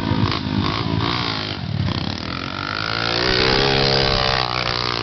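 Small off-road engines running, with a pit bike revving up as it rides off up a dirt trail. The engine note rises in pitch and gets louder about two seconds in, then drops back.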